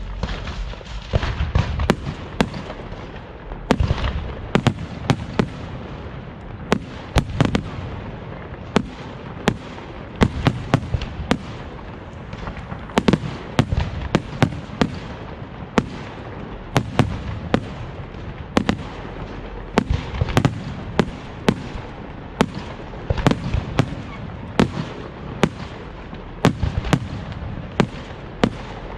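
Fireworks display: sharp shell bursts going off every second or so, often in quick clusters, over a continuous rumble and crackle.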